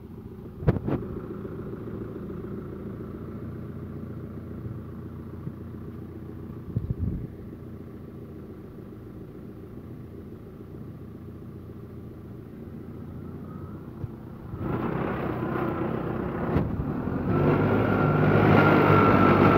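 Tractor engine running steadily, with a couple of sharp clacks about a second in. About fifteen seconds in it gets louder, and louder again near the end, as the rear loader's hydraulics lift a plastic-wrapped round silage bale.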